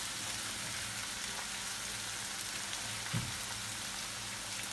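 Chopped spring onions sizzling steadily in olive oil in a frying pan. There is a soft knock about three seconds in.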